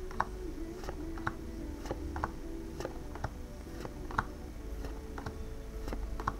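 Pokémon trading cards being leafed through by hand, light irregular clicks and taps about twice a second as card edges snap against each other.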